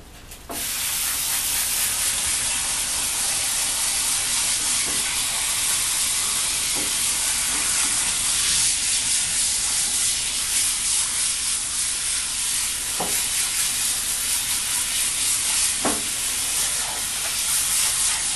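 Hose sprayer running, a steady hiss of water spraying onto a wet dog's coat in a bathtub, starting about half a second in.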